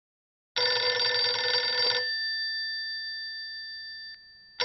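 Telephone bell ringing: one ring of about a second and a half starts about half a second in, its bell tones fading away, and the next ring starts near the end.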